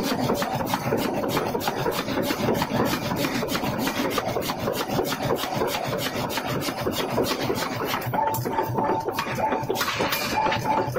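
Pneumatic forging hammer rapidly and steadily striking a red-hot forging on the anvil, several blows a second.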